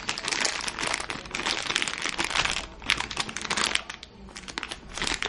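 Clear plastic bag of computer cables crinkling as it is handled and turned over in the hands, with a quieter moment about four seconds in.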